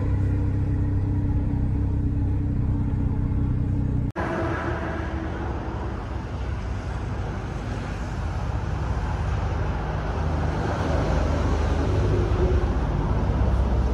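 A car engine idling steadily, heard inside the cabin as a low hum. About four seconds in it cuts off abruptly, giving way to a broad, steady noise with a fainter low rumble.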